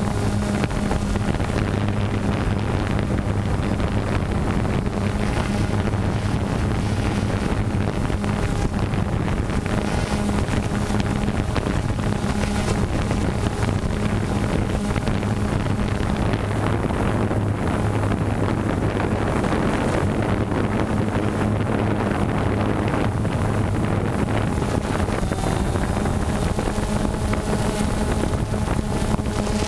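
DJI Phantom 2 quadcopter's propellers and motors buzzing steadily in flight, with wind noise on the microphone.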